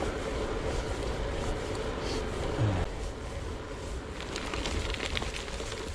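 Gravel bike rolling along a gravel trail: steady tyre-on-gravel noise and rumble, with a faint steady buzz in the first half.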